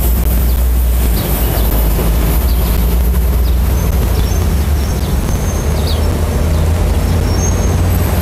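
City street traffic: buses and cars running past, a steady low rumble.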